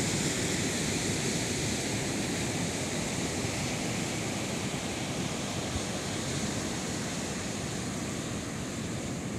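Ocean surf washing steadily onto the beach, with wind blowing.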